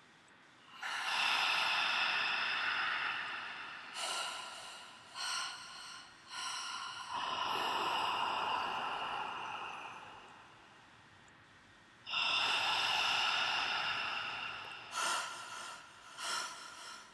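A person breathing close to the microphone: long audible exhales of two to three seconds, with short sharp breaths in between and several quick ones near the end.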